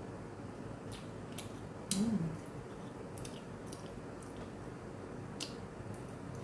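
Close-up chewing of food: scattered soft wet mouth clicks, with a brief hummed 'mm' about two seconds in.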